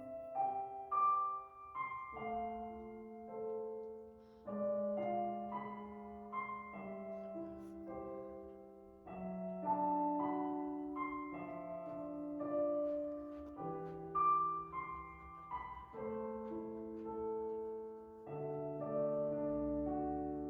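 Background piano music: a slow melody over held chords, the notes changing about once a second.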